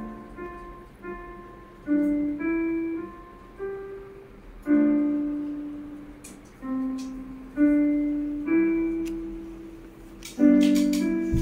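Slow background piano music: single notes and small chords struck one after another, each left to ring and fade. A few faint clicks sound between the notes.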